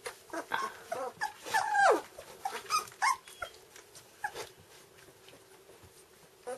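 Standard poodle puppies whimpering in a string of short, high cries that slide in pitch, most of them in the first three seconds, the loudest a cry falling steeply in pitch; a few faint cries follow.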